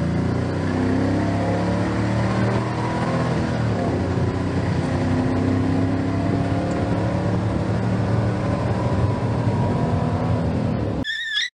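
Truck engine running steadily with small rises and falls in pitch; it cuts off abruptly near the end, just after a brief high wavering squeak.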